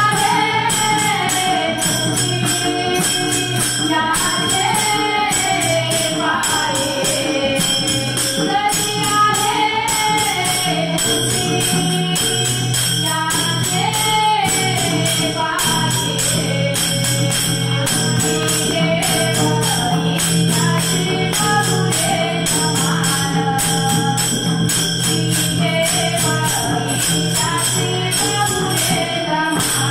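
Marathi Warkari bhajan: a sung devotional melody over small hand cymbals (taal) struck in a steady, even rhythm.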